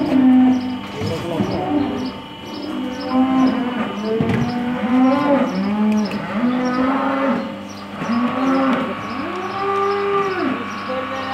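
Cattle mooing, many short calls in quick succession, some overlapping. Beneath them runs a steady hum and an even, fast, high-pitched ticking.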